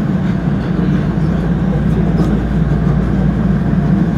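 Nagoya Municipal Subway Higashiyama Line 5050 series train running through a tunnel, heard from inside the front car: a loud, steady rumble of the train under way.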